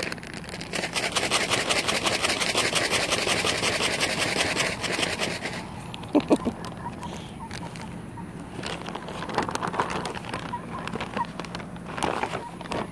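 Rapid crinkling rustle for about five and a half seconds, then quieter scuffing with a few short, soft chicken clucks.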